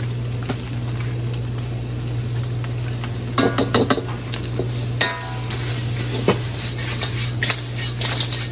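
Crab being stir-fried in a pan with salt seasoning: a steady sizzle over a constant low hum, with a metal utensil clanking and scraping against the pan in a quick cluster about three and a half seconds in and a couple of single knocks after.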